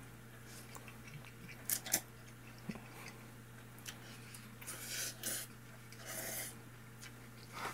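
A man eating spicy cup noodles: short hissing slurps as he sucks noodles in, about two seconds in and again around five and six seconds in, with quiet chewing between them.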